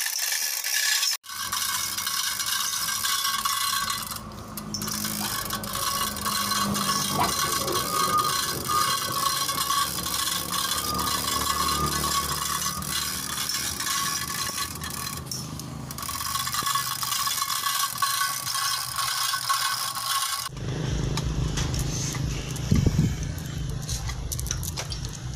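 Manual chain hoist being hauled by its hand chain: steel chain rattling and scraping through the block, with ratchet clicking, as it lifts a borehole's pipe string and submersible pump.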